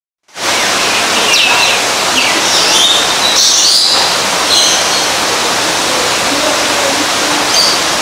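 Birds chirping and calling, short high chirps and a few quick rising and falling whistles, over a steady rushing noise that starts abruptly a moment in.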